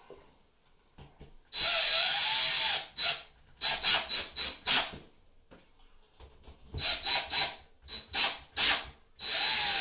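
Cordless drill with a Phillips bit driving screws through an oak pallet-wood block into the wall. It runs once for about a second with its motor pitch rising and falling under load, then gives two series of short trigger bursts as the screws are tightened down.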